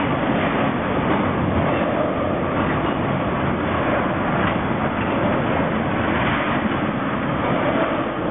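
Crude oil tank cars rolling past: the steady rush and rumble of steel wheels on rail, with a few faint clacks.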